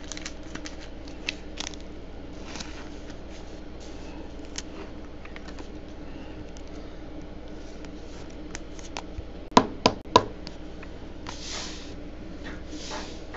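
Plastic handling as a trading card is slid into a clear plastic sleeve and rigid card holder: light ticks and rustles, three sharp clicks close together about ten seconds in, then two soft swishes, over a steady low hum.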